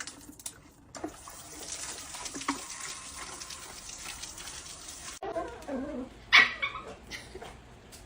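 A dog making a few short calls after a steady hiss that stops abruptly; the loudest call, about two-thirds of the way in, is sharp and sudden.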